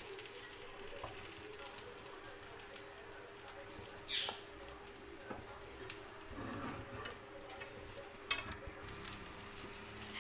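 Egg-stuffed chicken kebabs frying in oil in a pan: steady sizzling and crackling over a steady low hum, with a few short knocks, the sharpest near eight seconds.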